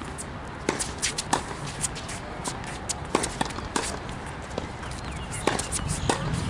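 Tennis rally on a hard court: racquets striking the ball and the ball bouncing on the court, a string of sharp knocks coming every half second or so, mixed with players' footsteps.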